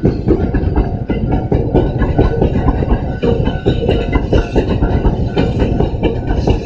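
A Kintetsu electric train passing at close range, its wheels clattering over the rail joints in a fast, irregular knocking over a steady rumble.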